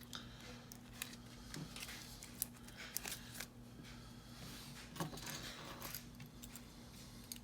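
Faint small metal clicks and scrapes of a Schlage kick cylinder lock being handled as it is gutted with a shim, over a low steady hum.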